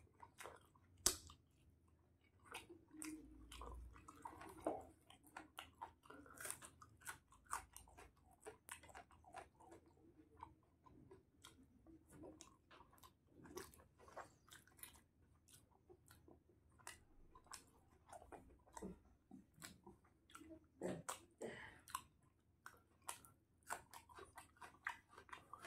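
A person chewing and biting pieces of chicken: a dense, irregular run of short mouth clicks and smacks, with a sharper bite about a second in.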